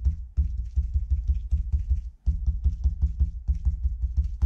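Fingertips quickly patting raw chicken breast cutlets lying on plastic wrap on a cutting board, pressing in the salt and pepper seasoning: a fast run of dull taps, about five or six a second, with a brief pause about two seconds in.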